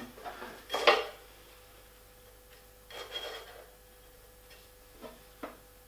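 Aluminium knife-setting gauge scraping briefly over the table of an Elektra Beckum HC300 jointer as a knife on the hand-turned cutterhead drags it. This happens twice, about a second in and about three seconds in, followed by a couple of light ticks near the end. The knife height is being checked, and the knife is still a little too low to carry the gauge the full distance.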